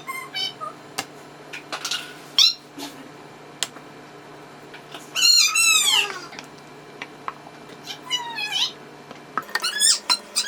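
Cat meowing repeatedly in short, high-pitched calls, with one longer, louder meow about five seconds in.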